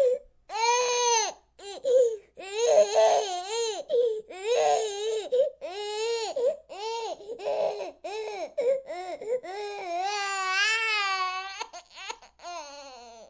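Infant crying in a run of high-pitched wails with short catches of breath between them, ending in one long, wavering wail before it trails off.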